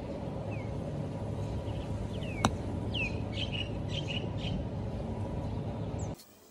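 A golf club strikes the ball with a single sharp click about two and a half seconds in, over steady low outdoor background noise. Birds chirp with short falling calls around the strike and for a couple of seconds after.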